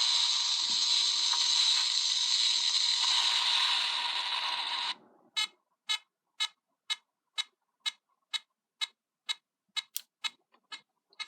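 Electronic sound effect from a Gokai Saber toy's speaker: a steady hissing blast that cuts off abruptly about five seconds in, followed by sharp clicks about two a second. The owner takes the effect for cut short by a dying battery.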